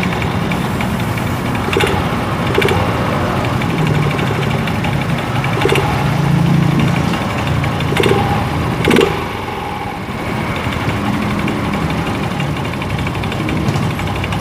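Yamaha Mio Z scooter's single-cylinder engine running with the CVT cover off, its speed rising and falling a few times, with a rough rattling 'trek tek tek' and scattered sharp clicks from the CVT drive. The owner traces the rattle to the variator's roller housing, worn loose at its bushing and plastic slider pins.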